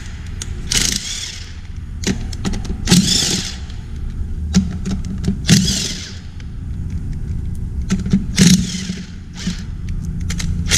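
A power ratchet spinning the flange nuts off the front crankshaft seal housing of a Cummins ISL engine, run in about five short bursts with sharp clicks between them. A steady low hum runs underneath.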